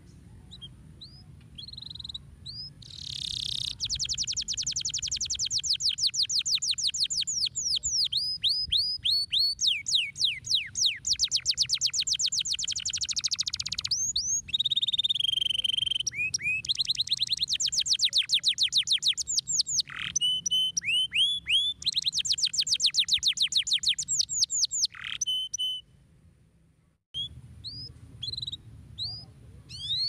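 Domestic canary singing: long runs of fast, high trills and rapidly repeated notes, broken by short pauses, then a few separate chirps near the end.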